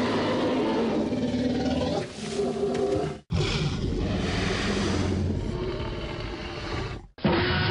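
Tyrannosaurus rex roar sound effects, deep and growling. One roar cuts off suddenly about three seconds in, a second runs for nearly four seconds, and a third starts just before the end.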